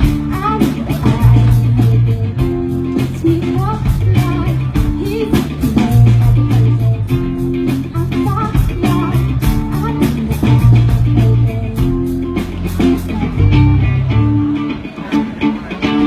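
Instrumental passage of a pop-rock song: guitars, bass and a steady drum beat with no lyrics sung. The drums drop out near the end.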